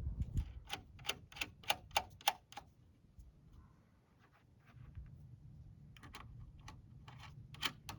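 A run of sharp clicks, about three a second, then a pause and a second, more scattered run of clicks near the end.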